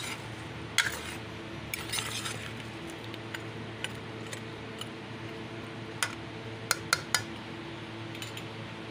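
Metal spoon clinking and scraping against a stainless steel pan while stirring a thick chicken-feet curry, with sharp clinks about a second in, around two seconds, and a quick cluster around six to seven seconds in.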